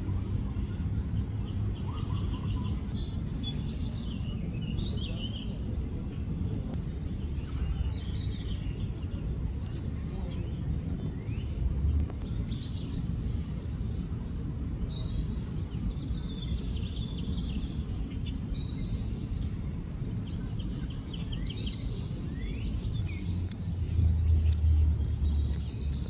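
Small birds chirping and singing, with short high calls scattered throughout, over a steady low rumble that grows louder near the end.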